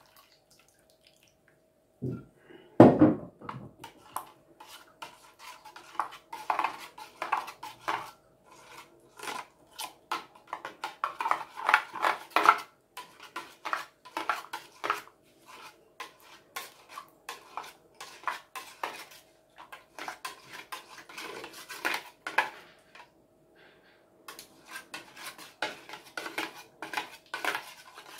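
Metal spoon scraping and clinking against a stainless steel conical sieve as wet beetroot juice pulp is pressed through the mesh, in quick irregular strokes. A louder knock sounds about two to three seconds in.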